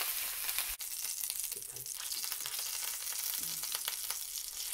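Block of pork belly searing in oil in a frying pan: a steady sizzle with fine crackling, with a brief break about a second in.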